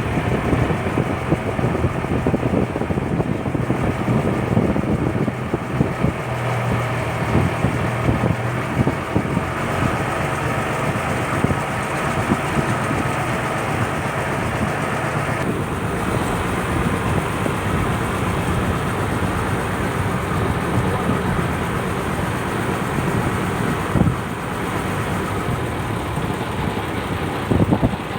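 Purse seine fishing boat's engine running steadily, a constant low hum with a mechanical clatter over it.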